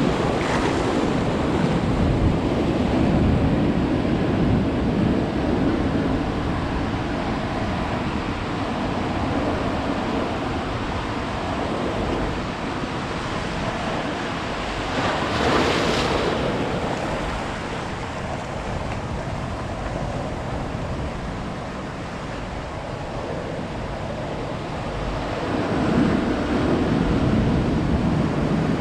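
Ocean surf: waves breaking and washing up the beach in a continuous rushing wash, swelling with a louder break about halfway through and again near the end, with wind buffeting the microphone.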